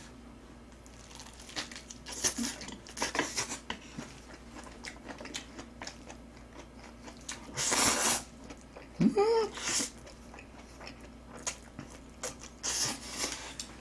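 Close-up eating sounds: chewing and crunching on cabbage kimchi and black-bean instant noodles, in scattered bites and wet mouth clicks. The loudest is a longer noisy burst about eight seconds in.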